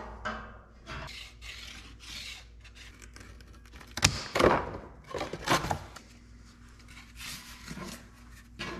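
A thin sheet rubbing and scraping against the steel bucket as it is handled, with a couple of louder sharp cuts from snips about four and five and a half seconds in.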